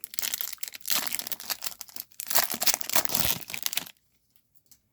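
A foil wrapper of a Topps baseball card pack crinkling as it is torn open, a dense crackle in three short spells that stops about four seconds in.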